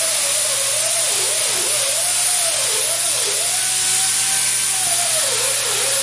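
Compressed air hissing from an air hose nozzle held near a concrete floor, a loud steady rush with a whistle that dips and rises in pitch as the nozzle is moved.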